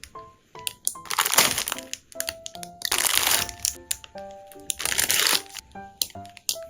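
Plastic packaging crinkling and rustling in three long bouts as goods are unwrapped, over light background music of short, separate notes.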